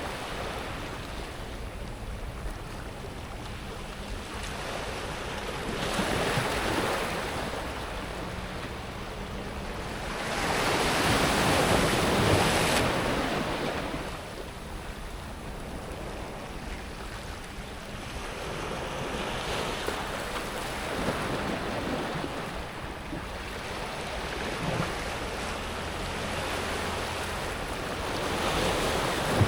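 Small sea waves washing up a pebble beach, the water hissing and rattling over the stones and drawing back, in slow surges every several seconds. The biggest wash comes about ten to thirteen seconds in.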